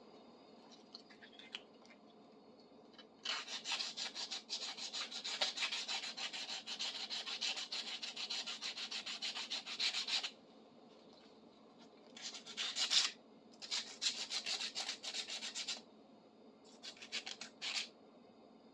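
Abrasive rubbing on the metal of a big adjustable wrench as it is cleaned up: quick back-and-forth strokes in spells, a long run of about seven seconds followed by three shorter ones.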